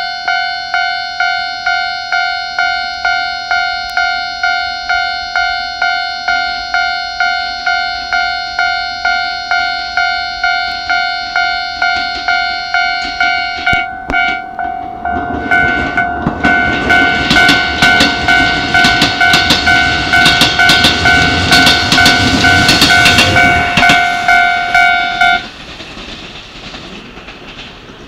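Railway level-crossing warning bell ringing, an electronic two-tone clang about twice a second. From about halfway through, a Keikyu 1000-series electric train runs over the crossing with loud wheel clatter over the rail joints. The bell cuts off near the end as the last cars go by, leaving the fading rumble of the train.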